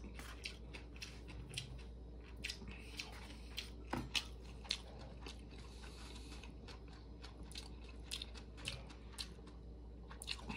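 Close-up chewing and mouth sounds of a person eating a mouthful of soup and rice, with many small irregular clicks and smacks.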